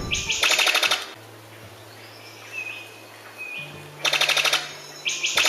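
Brown sicklebill (a bird of paradise) calling: bursts of rapid, evenly spaced clicks that sound like machine-gun fire, repeated three times with pauses between them.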